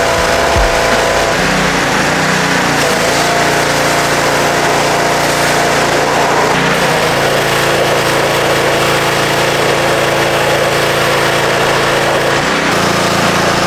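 Gas pressure washer running under load, its Honda small engine droning steadily while the high-pressure spray hisses against the steel frame. The engine note shifts a few times.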